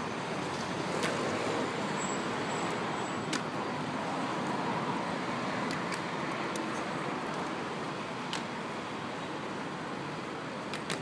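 Steady background city traffic noise, with a few sharp clacks scattered through it: the Evzones guards' hobnailed shoes striking the stone paving as they march.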